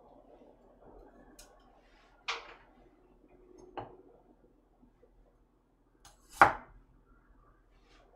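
Kitchen knife knocking on a cutting board while slicing garlic cloves: three separate knocks, the loudest about six seconds in, over a low room hum.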